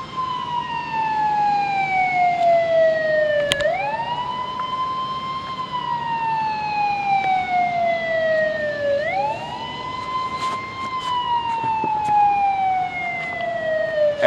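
Lock warning siren at a dam wailing in a slow cycle: each wail rises quickly, holds high, then slides slowly down over about three seconds, starting over roughly every five and a half seconds. It is the warning given as the lock is about to open for a barge.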